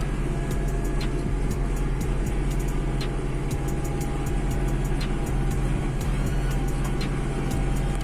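Hattat 398 tractor engine running steadily under load, heard from inside the cab, while pulling a mounted plough through the soil. A constant low drone with frequent sharp clicks and rattles over it.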